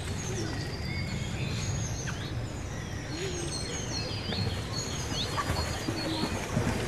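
Outdoor summer ambience: several songbirds chirping with short, quick rising and falling calls throughout, over a steady low rumble.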